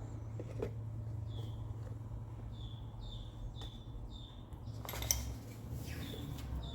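A bird chirping repeatedly, short falling chirps about once a second, over a low steady hum. A brief metallic clatter about five seconds in.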